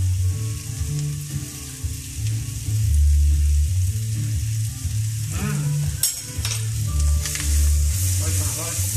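Chickpeas and smoked bacon sizzling in a nonstick frying pan over high heat, with the pan shaken and the chickpeas tossed near the end.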